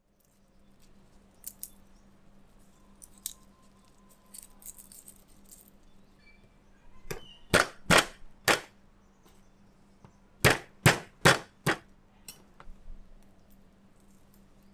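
Sharp knocks in two quick runs, three about halfway through and four more a couple of seconds later, each a little under half a second apart. A few fainter taps and light clinks come before them.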